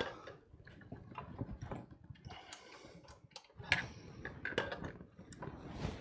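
Sharp metal clicks and taps as a pasta-roller attachment is worked into the attachment hub of a stand mixer and twisted tight, with the loudest click right at the start and a few more near the end.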